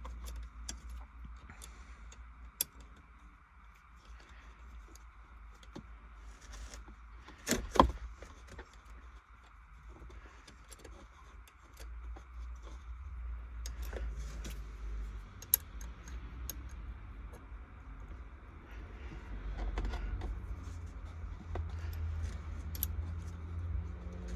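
Irregular metallic clicks and clinks of a hand tool tightening the short shifter's mounting bolts, with one sharper knock about eight seconds in, over a steady low rumble.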